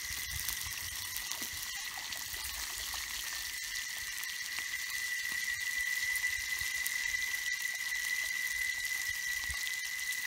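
Fish frying in oil in a pan over a wood fire: a steady sizzle, with a steady high-pitched drone over it.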